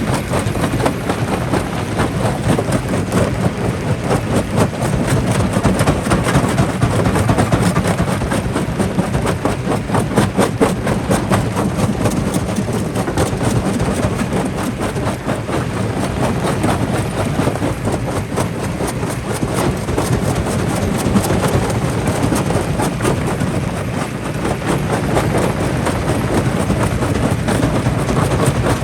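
Jaw crusher running with rock in its jaws: a steady heavy machine rumble with a dense, rapid clatter of cracks and knocks from stone being broken.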